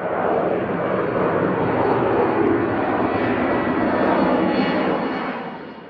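Aircraft flying past: a loud, broad rushing engine noise that swells in, holds steady, and fades away near the end.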